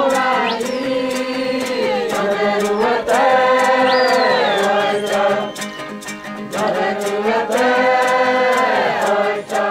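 A group of Indigenous men chanting together in long held phrases, the voices pausing briefly about three seconds in and again near seven seconds, over a steady beat of short sharp strokes about twice a second.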